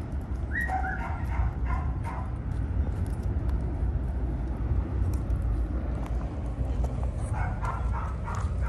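Shiba Inu whining in short, high, gliding whimpers, a little under a second in and again near the end. Light crunching steps on wood chips and a steady low rumble run underneath.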